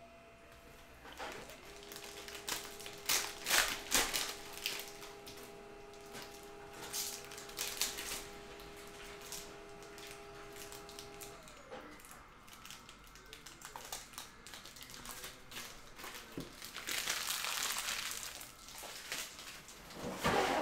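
Plastic wrapper of a Panini Prizm cello pack of trading cards crinkling and crackling as it is torn open and handled, in irregular sharp crackles with the densest stretch about three-quarters of the way through.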